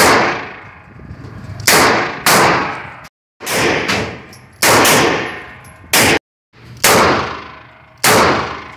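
A short-barrel Smith & Wesson Model 60 revolver fires about eight shots, each sharp report followed by a long ringing tail from the walls of an indoor range. Twice the sound cuts off abruptly into silence.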